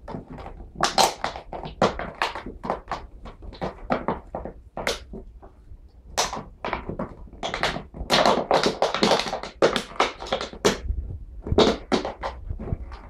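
A rapid, irregular series of knocks and taps, several a second, with a short lull about five seconds in.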